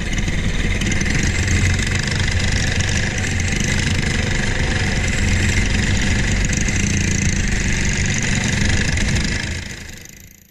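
Briggs & Stratton LO206 four-stroke kart engine running steadily at racing speed, heard from on board the kart. It fades out near the end.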